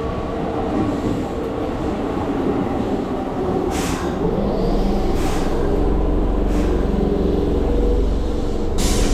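Keihan Line electric train running, with a steady motor hum whose pitch glides around the middle and a low rumble that builds from about halfway. Four short hissing bursts cut in at intervals.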